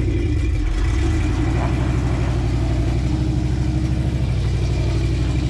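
Jeep CJ-7 engine running steadily at low speed.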